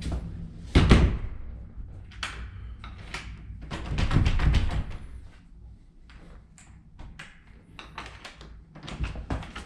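A door being shut, with a heavy thud about a second in, followed by a scatter of clicks and knocks from the door and its latch or lock hardware.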